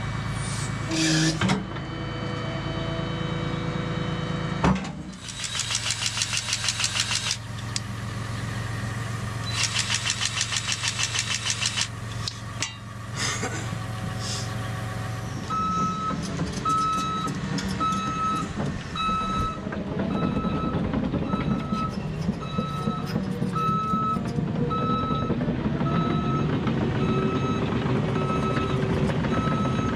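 Heavy earthmoving machine's diesel engine running steadily, with two stretches of rapid clattering in the first half. From about halfway through, a backup alarm beeps at an even pace, about one and a half beeps a second.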